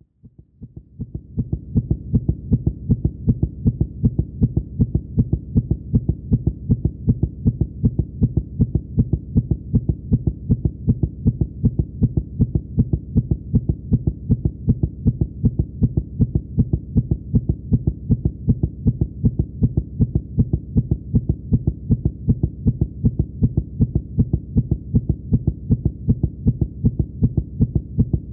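Fast heartbeat sound effect: a rapid, steady heartbeat with dull, low beats, fading in over the first two seconds.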